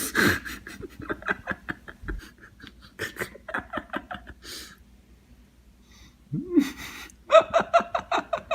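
A person laughing hard in quick, breathy bursts. The laughter pauses briefly around the middle and then starts again with a vocal whoop.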